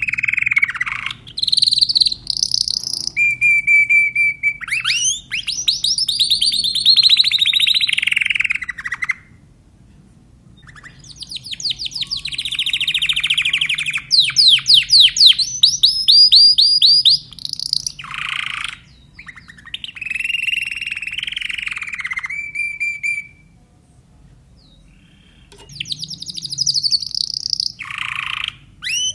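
Timbrado canary singing in phrases of fast trills and rolls, with two pauses of about two seconds, one near the middle and one near the end.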